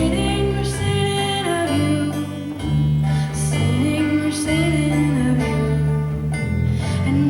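Live acoustic folk song: a voice singing a slow melody of long held notes that slide from one to the next, over plucked-string accompaniment.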